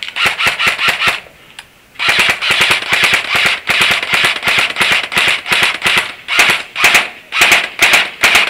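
Airsoft rifle firing on full auto in rapid bursts of sharp clicking shots. One burst lasts about a second, then after a short pause the firing goes on in near-continuous bursts.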